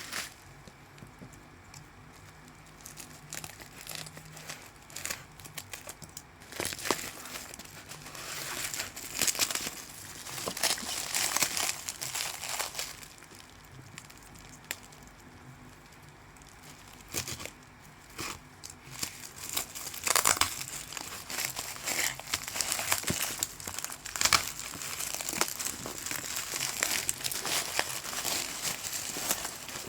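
Packaging crinkling and rustling in irregular bursts as a parcel is unwrapped by hand, with quieter pauses of a few seconds near the start and around the middle.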